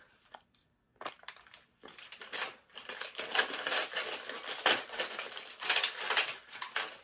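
Plastic snack bag being handled and opened: sharp crinkling and crackling, dense and loud from about two seconds in, with a few scattered crackles before that.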